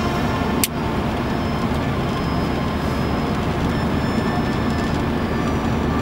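Scania truck on the move, heard from inside the cab: a steady drone of engine and road noise. A single sharp click comes about half a second in.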